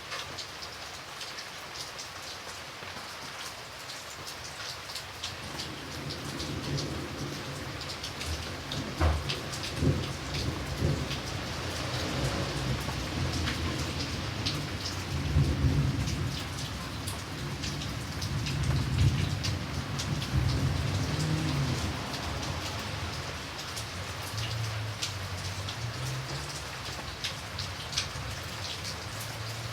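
Steady rain, with scattered sharper drop hits. From about five seconds in, a long low rumble of thunder builds, loudest in the middle, and rolls on until near the end.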